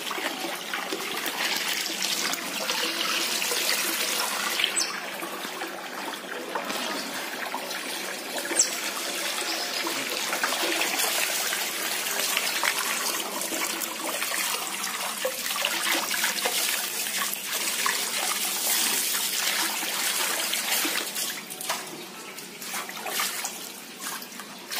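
Water pouring steadily from a garden hose into a plastic tub, with otters splashing about in it. The pouring grows weaker and more uneven in the last few seconds.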